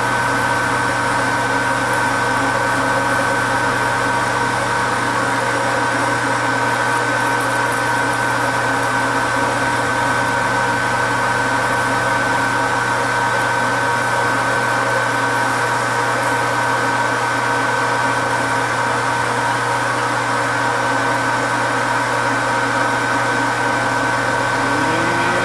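Heavy metal lathe running steadily: an even motor hum with a constant high whine, unchanging in level.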